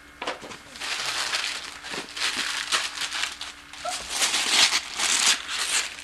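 Gift wrapping paper rustling and crumpling in irregular bursts as a present is unwrapped.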